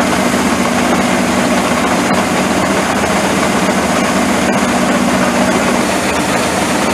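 Engine of harvesting machinery running steadily at full work under load, a continuous machine drone with a steady low hum that fades out about six seconds in.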